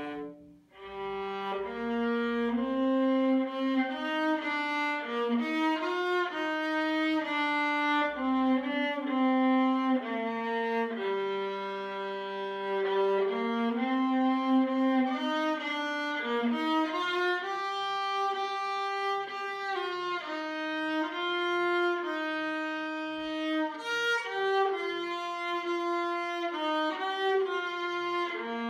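Solo viola played with the bow: a melodic line of held and moving notes, with a short break about half a second in before the playing resumes.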